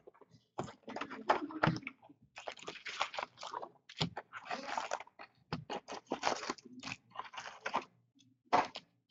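Plastic wrapping crinkling and tearing as a box of hockey card packs is opened. It comes in irregular bursts, loudest about a second in and near the end.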